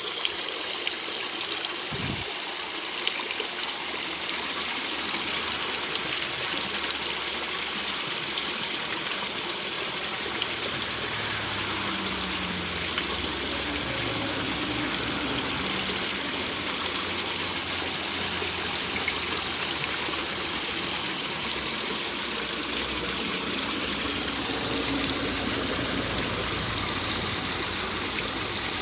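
Water gushing steadily from the outlet of a 200-watt pond pump into a fish pond, the pump freshly cleaned and running again.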